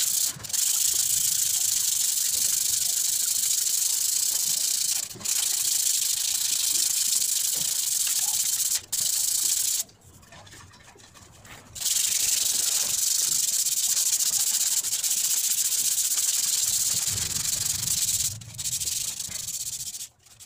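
Rubbing and abrading the rusty steel tube legs of an office-chair base by hand: a steady high hiss that breaks off briefly a few times and drops away for a couple of seconds about ten seconds in.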